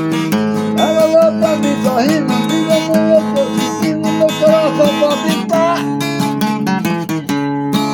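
Acoustic guitar (violão) strummed in a steady rhythm, with a wavering melody line played over the chords for most of the passage.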